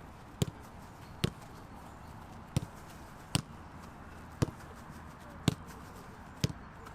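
Football being kicked in a training drill: seven sharp thuds of boot on ball, irregularly spaced about a second apart.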